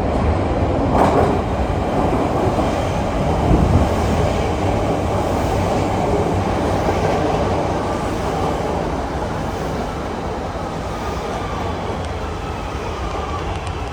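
Chicago 'L' Blue Line train running on the rails: a loud, steady rumble that is loudest in the first few seconds and eases off slightly toward the end.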